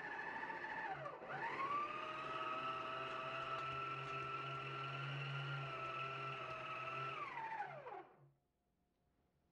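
Electric stand mixer motor whining as its dough hook kneads bread dough. About a second in, the speed is turned up: the pitch dips briefly, then climbs to a higher steady whine. Near the end the motor winds down and stops.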